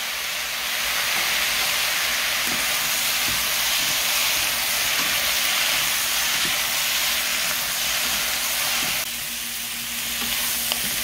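Squid and vegetables sizzling steadily in a hot pan as they are stir-fried, with a few light taps of wooden chopsticks and a spatula tossing in chili powder. The sizzle eases slightly about nine seconds in.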